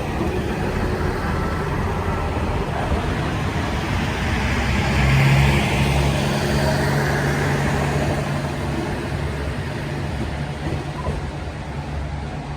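Two-car KiHa 40 series diesel railcar train going by: a steady low diesel engine drone under running noise. It swells to its loudest about five seconds in, then slowly fades.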